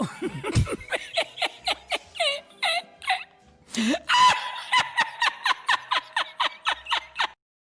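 Laughter sound effect: rapid rhythmic bursts of laughing, about three or four a second. It breaks off briefly a little past the middle, then resumes as a higher-pitched laugh that cuts off suddenly shortly before the end.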